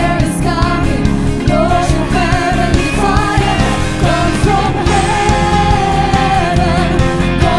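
Worship band playing a rock-style Christian worship song, with a vocal line held over guitars, bass and drums keeping a steady beat.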